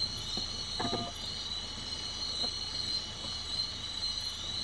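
A steady chorus of night insects, crickets, trilling in pulsing high-pitched bands, with a brief pitched sound about a second in.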